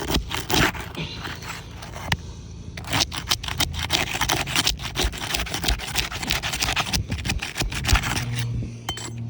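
Asphalt roof shingle being pried and pulled loose: scraping and crackling with many sharp clicks as its sealed edge tears away from the shingle beneath, densest through the middle.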